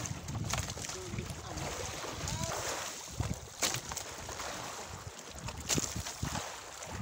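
Wind buffeting the microphone over water sounds on a fishing boat at sea, with a few sharp clicks or knocks scattered through.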